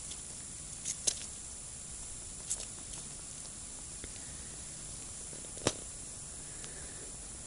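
Low steady hiss with a few short, sharp clicks, the sharpest a little over halfway through, from hands jigging a small winter ice-fishing rod over a hole in the ice.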